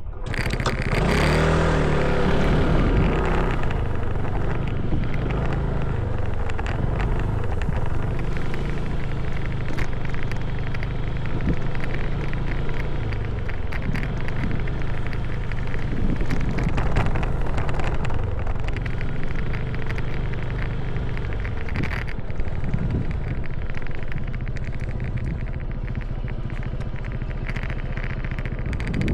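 Motorcycle engine pulling away, its pitch rising and shifting during the first few seconds, then running steadily at riding speed, with a steady rushing noise over it.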